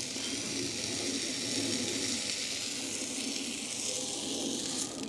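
Hot steel horseshoe pressed against a horse's trimmed front hoof during hot-fitting, the horn sizzling with a steady hiss as it burns. The hiss cuts off abruptly near the end.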